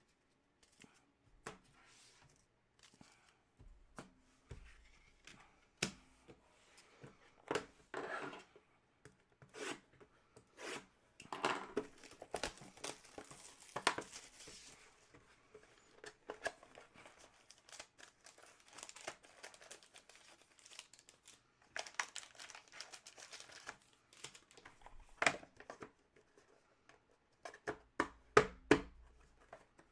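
Trading card pack wrappers being torn open and crinkled, with cards being handled: scattered light taps and clicks, and two longer spells of crinkly tearing about halfway through and again a few seconds later.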